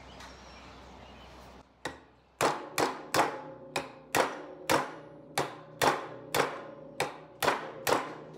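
Claw hammer striking a steel rod held against the shaft of a Yanmar raw water pump clamped in a bench vise, driving the shaft and bearings out of the pump housing. After a quiet couple of seconds come about fourteen sharp metal-on-metal blows, roughly two a second, each ringing briefly.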